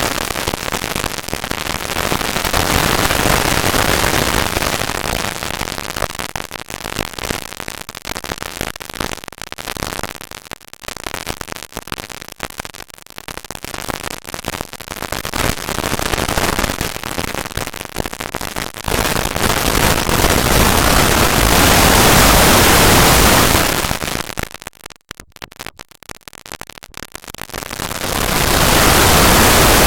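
Harsh hiss and crackle with no clear tones, swelling and fading in loudness and cutting out in short gaps about 25 seconds in: heavily distorted, sped-up audio.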